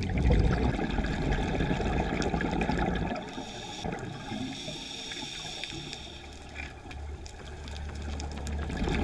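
Underwater sound at a scuba diver's camera: a low, uneven rumble of water and exhaust bubbles, louder in the first three seconds, then weaker.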